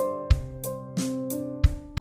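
Background music: sustained pitched notes over a steady beat.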